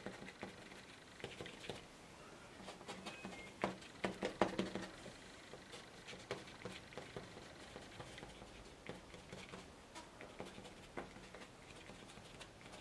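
A plastic card scraping over wet cotton watercolour paper in short, faint scratchy strokes, etching lighter texture out of the paint. The strokes come scattered, with a denser, louder run about four seconds in.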